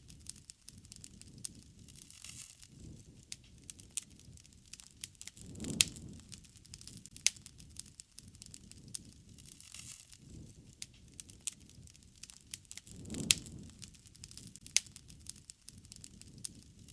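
Wood fire crackling, with sharp pops and snaps scattered throughout and a low rush of flame swelling up twice.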